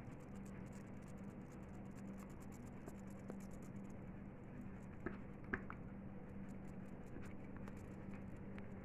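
Brown crayon rubbing back and forth on paper, a faint steady scratching as an area is coloured in, with two light taps about five seconds in. A low steady hum sits underneath.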